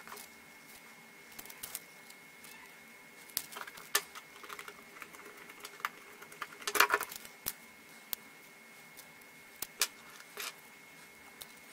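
Small clicks, taps and scraping of fingers handling a tiny laptop circuit board and its metal parts on a wooden tabletop, with a denser clatter about seven seconds in and a few sharp ticks.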